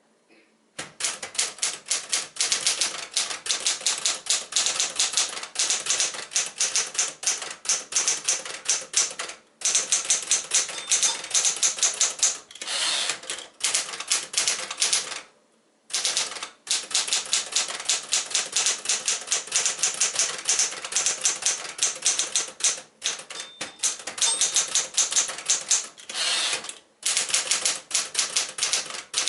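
Smith-Corona Super Sterling manual portable typewriter being typed on at a brisk pace: rapid key-and-typebar strikes in long runs, broken by a few short pauses.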